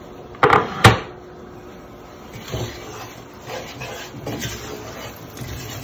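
Wooden spatula scraping and stirring onions in oil in a non-stick frying pan, in a few separate strokes. Two sharp knocks about half a second apart near the start are the loudest sounds.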